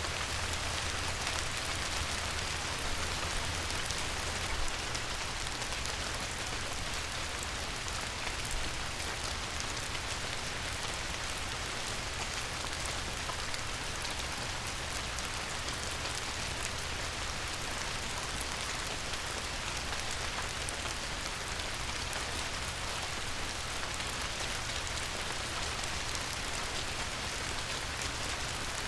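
Light rain falling on a river: a steady, even patter of many small drops.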